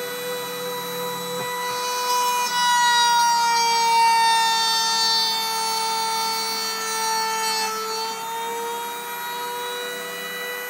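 Rotary-tool spindle of a homemade Mantis-30 CNC mill whining steadily while the bit routes into wood. From about two seconds in it gets louder, its pitch sags slightly and a cutting rasp rides on top, a sign of the bit biting under load. Near eight seconds it eases back to the steady whine.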